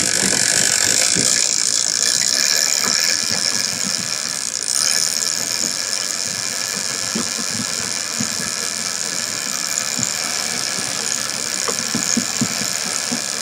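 Big-game trolling reels, Shimano Tiagra 130s, with their clickers buzzing steadily as line is let out to set the trolling spread. The buzz is a little louder in the first few seconds.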